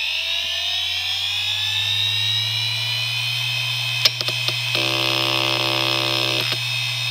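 IBM Deskstar 120GXP 7200 rpm hard drive starting up: the spindle motor's rising whine levels off into a steady hum at full speed. About four seconds in, a few sharp head-actuator clicks are followed by about a second and a half of buzzing head seeks ending in a click. This is a normal startup for a drive in perfect health.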